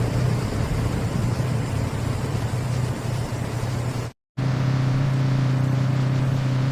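Engine of a farm machine running steadily. The sound cuts out for a moment about four seconds in, and another steady engine hum follows.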